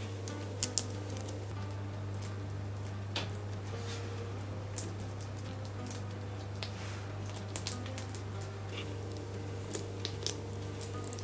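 Hands pinching and pressing soft yeast dough on a parchment-lined baking tray: scattered faint clicks and crackles, more of them in the second half, over a steady low hum.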